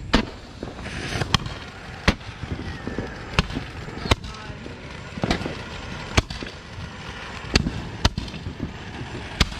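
Consumer fireworks going off: a string of about a dozen sharp bangs at uneven intervals, roughly one a second.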